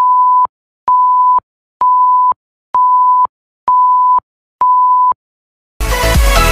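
Countdown beeps: six short, steady, high-pitched tones of the same pitch, about half a second each and one a second. Near the end, electronic dance music starts.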